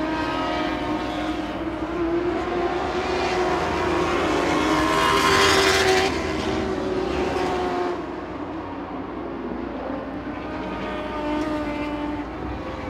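Lightning sprint cars racing on a dirt oval, several engines revving up and down through the laps. One car passes loudest about five to six seconds in, and the sound drops back a little about two seconds later.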